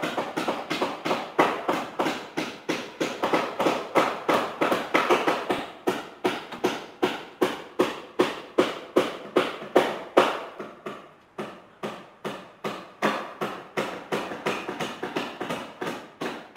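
Steady rhythmic clacking, about three sharp strikes a second, with a short dip a little past halfway.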